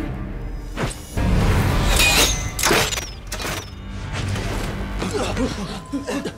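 Film soundtrack of tense score and sound effects. A heavy low rumble swells about a second in, with several sharp hits and sweeping swishes over it.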